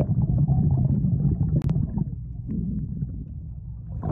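Muffled low rumble and churn of pool water heard through a phone microphone held underwater, with no higher sounds getting through. It is loudest in the first two seconds and has one sharp click about a second and a half in.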